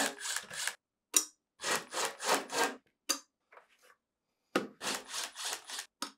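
Milwaukee cordless impact driver with a 5/16 inch nut driver bit running in short trigger bursts with brief pauses, backing out the sheet-metal screws of a refrigerator's compressor access cover.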